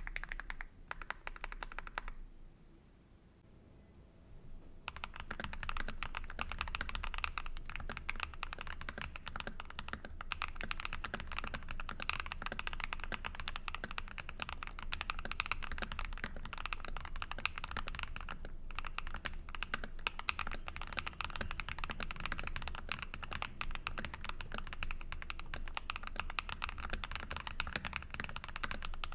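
Typing on a mechanical keyboard fitted with PBT keycaps: a fast, dense run of key clacks that stops about two seconds in, pauses for about three seconds, then starts again about five seconds in and keeps going.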